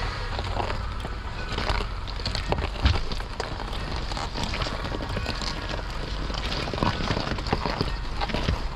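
Lifted 2003 Honda CR-V driving over rough gravel: tyres crunching, with many short crackles and knocks over a low road and engine rumble.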